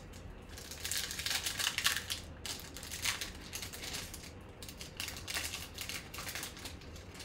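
Foil wrapper of a baseball card pack crinkling and tearing as it is pulled open by hand, in a string of irregular crackles.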